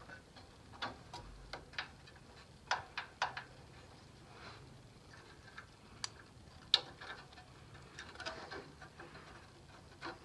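Scattered light clicks and taps of hand tools and a feeler gauge at the valve rockers of an air-cooled VW Beetle engine during a cold valve adjustment, a few sharper clicks among them, over a faint low hum.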